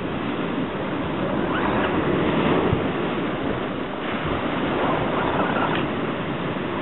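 Steady rush of surf on a beach, with wind on the microphone.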